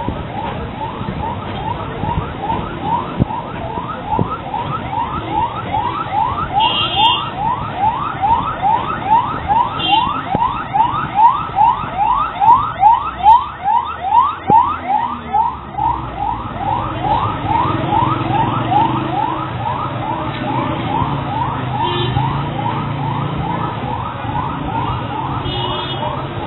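Ambulance siren sounding in quick rising sweeps, two to three a second, growing louder to a peak about halfway through and then easing off, over a low traffic rumble.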